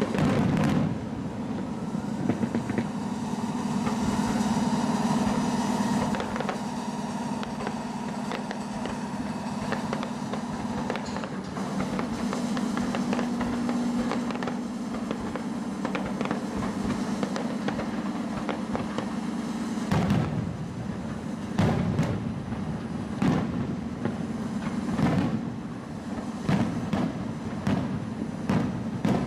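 Aerial fireworks bursting and crackling, over a steady droning hum that cuts off suddenly about twenty seconds in; after that the shells go off as a run of separate loud bangs.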